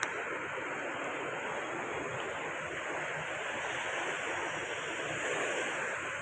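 Sea waves washing onto the shore, a steady rush of surf that swells slightly about five seconds in.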